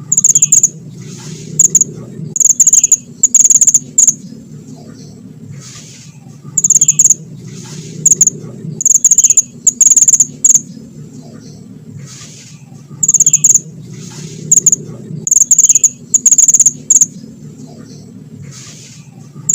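A small mantenan songbird singing hard, in loud clusters of shrill, high rapid calls, played as a looped lure recording that repeats the same phrase pattern about every six seconds. A steady low hum runs underneath.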